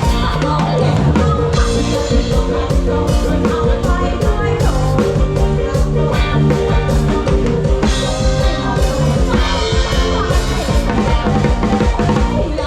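Live band playing a rock-style song, the drum kit keeping a steady beat under the other instruments.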